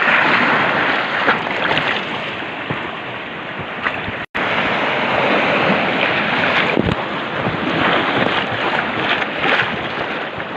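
Rushing whitewater of river rapids, a steady, even rush of water noise, broken by a brief dropout a little past four seconds in.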